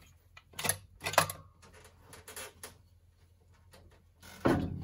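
Scattered metal clicks and knocks of hand tools and parts while a two-barrel carburetor is unhooked and taken off an engine, with a louder knock near the end.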